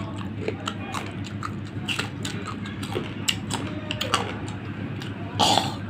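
Raw green mango being bitten and chewed close to the microphone: crisp crunches and wet mouth clicks every fraction of a second, with one louder, longer crunch near the end.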